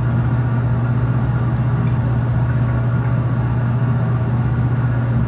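Laboratory fume hood's exhaust fan running, a steady low hum with a whooshing airflow above it.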